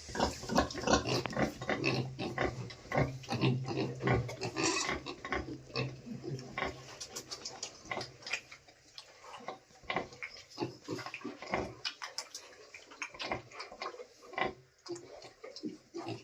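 Pigs grunting: many short, irregular sounds, busier in the first half and thinning out later. A low steady hum runs underneath and stops about seven seconds in.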